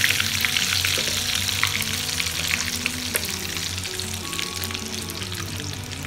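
Hot oil sizzling and crackling in a small pan as a tadka fries: mustard seeds, dried red chilies and curry leaves with a pinch of hing. The sizzle slowly dies down. Soft background music plays underneath.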